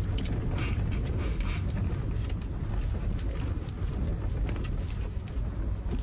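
Strong wind blowing, a steady low rumble with scattered faint ticks.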